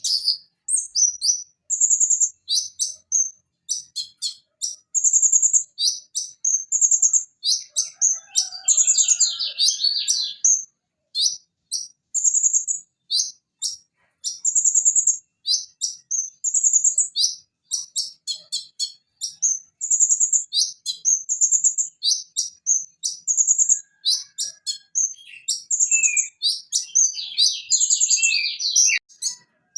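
Purple-throated sunbird (konin) singing: a fast, continuous run of short, high, sharp chirps and whistled notes, with denser scratchy trills about eight seconds in and again near the end.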